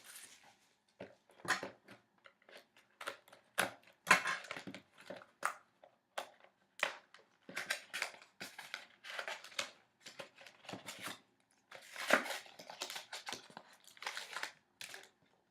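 Packaging crinkling, tearing and rustling as a sealed trading card box is handled and opened: a run of short, irregular rustles and scrapes.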